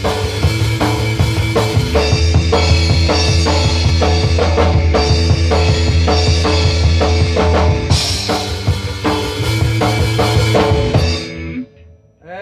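Rock music with a full drum kit, kick and snare hitting in a steady fast beat over a strong bass line. The music cuts off about a second before the end.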